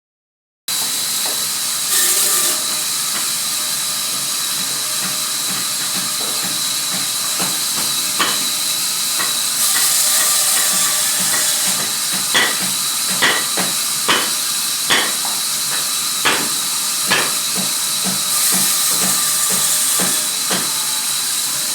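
Sawmill machinery running with a steady loud hiss that swells three times, with a run of sharp knocks about halfway through.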